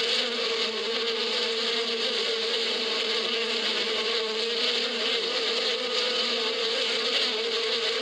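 Many honeybees flying around their hive, a steady dense buzz of wings.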